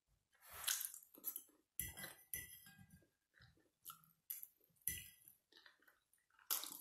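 Metal fork clinking and scraping against a ceramic plate while a person eats, with chewing between: a string of short, separate clinks and scrapes.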